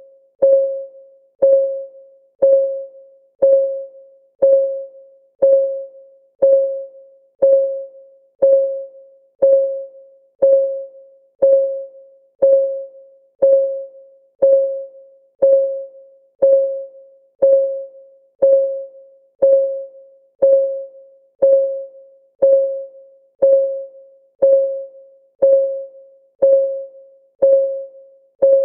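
Countdown timer's clock-ticking sound effect: one tick per second, evenly spaced, each a short ringing note that fades quickly.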